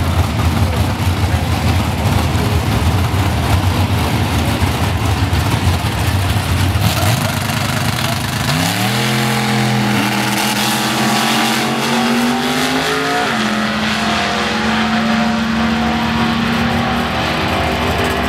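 Drag-racing engines rumbling heavily at the starting line, then a launch about eight and a half seconds in: the engine note climbs in pitch, with gear changes at about ten and thirteen seconds, and then holds a steady pitch as the vehicle runs down the strip.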